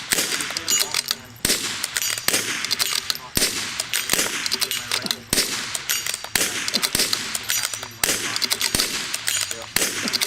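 Two shooters firing rifles against each other at a steel dueling tree: irregular sharp shots, about one loud report a second with quicker cracks between them, each leaving a short echo.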